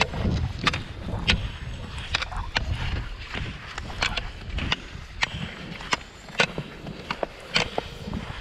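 Cross-country ski poles planting on thin snow over hard pavement, sharp clicks about every half second to second as the skier strides along, with skis scraping on the snow. A low rumble of wind on the microphone fills the first half and drops away about halfway through.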